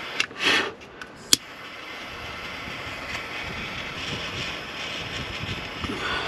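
A small handheld torch is clicked and burns with a steady hiss while it heats a plastic connector cap to shrink it down.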